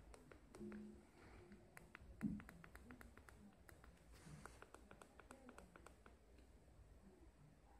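Faint, quick clicks of the buttons on an e-bike LCD5 display being pressed over and over, in runs of several a second, as a menu setting is stepped through. A single soft thump about two seconds in is the loudest sound.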